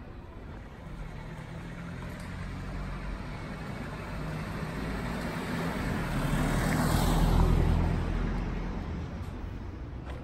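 A car driving past: its engine and tyre noise grows as it approaches, is loudest about seven seconds in, then fades away.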